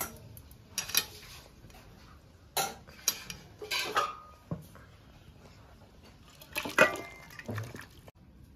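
Metal pot and utensils clinking and clattering as the cooked curry is taken off the stove: about seven separate knocks, some with a brief metallic ring, the loudest about two-thirds of the way in.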